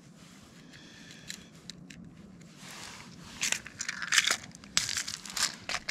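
A small plastic tackle box being handled, with a quick run of sharp clicks, rattles and rustles starting about halfway through.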